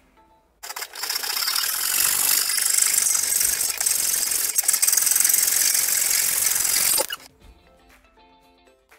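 Handheld electric belt sander running against the corners of a wooden frame: a loud, harsh grinding hiss that starts about half a second in and cuts off suddenly about two seconds before the end, with soft background music on either side.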